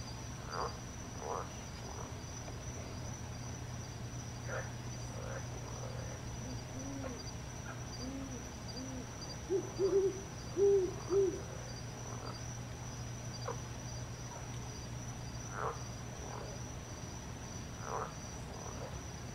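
An owl hooting: a run of soft low hoots about a third of the way in, then four louder hoots in quick succession near the middle. A steady high insect drone runs underneath, with a few short chirps here and there.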